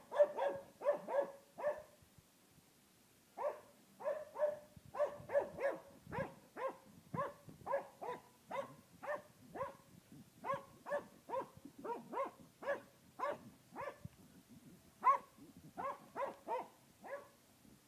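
A sheepdog barking over and over in quick runs of short barks, about two to three a second, with a brief pause about two seconds in.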